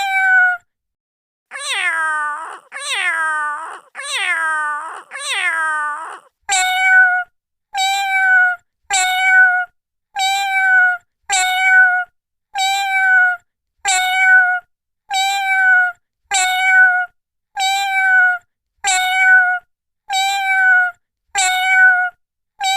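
Domestic cat meowing in a sound-effect recording. Four drawn-out meows fall in pitch, then the same short meow repeats about once a second, with dead silence between calls.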